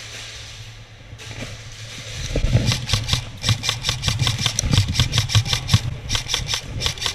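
Rapid, sustained airsoft gunfire: a fast string of sharp cracks that starts about two seconds in and keeps going, over a steady low hum.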